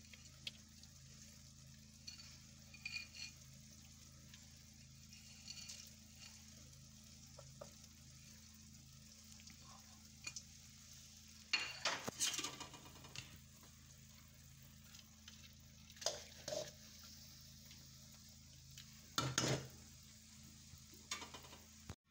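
Spoon stirring and scraping through thick pumpkin halwa in an aluminium kadai as chopped nuts and raisins are mixed in: scattered scrapes and clinks against the pan, the longest about twelve seconds in and another loud one about nineteen seconds in, over a faint steady low hum.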